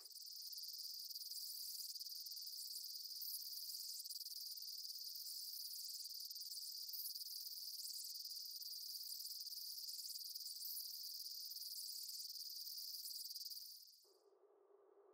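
Steady high-pitched insect chorus that cuts off abruptly about a second before the end.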